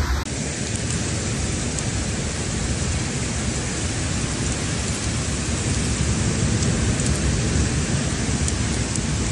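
Heavy rain pouring down in a torrential storm, a dense, steady hiss.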